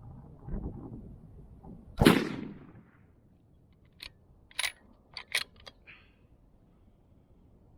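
A single rifle shot from a 6.5 Creedmoor Mossberg Patriot bolt-action, firing a 140-grain Remington Core-Lokt soft point, about two seconds in. Soon after comes a quick run of about six short metallic clicks as the bolt is worked.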